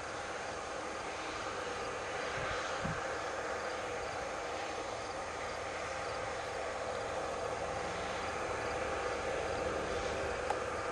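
Tractor pulling a grain cart through a harvest field, its engine a steady, even drone under a constant hiss, with a couple of dull low thumps a few seconds in.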